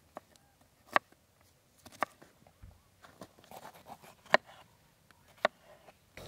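Kitchen knife cutting onion and then a red bell pepper on a plastic cutting board: a few sharp knocks as the blade hits the board, with softer slicing ticks in between.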